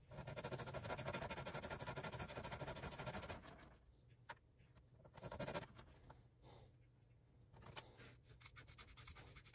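Hand sanding of a small plastic figure part: fast rubbing strokes for about three and a half seconds, a shorter burst around five seconds in, then scattered light scratches near the end.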